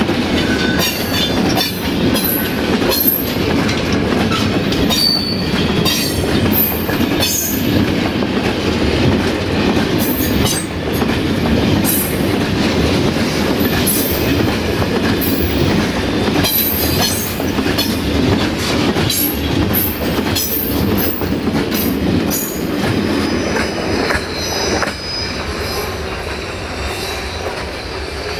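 Freight train wagons rolling past, wheels clattering over the rail joints with occasional wheel squeal. It grows quieter near the end as the train moves away.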